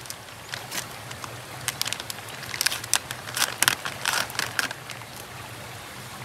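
Plastic packet of dried noodles crinkling and crackling as it is handled and opened. The crackles come in a close cluster for a couple of seconds in the middle, over the steady sound of a flowing stream.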